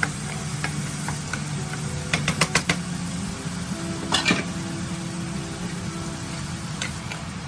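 A spoon stirring tomato masala in a cooking pan, with a few sharp clinks of metal on the pan about two and four seconds in, over a soft simmer.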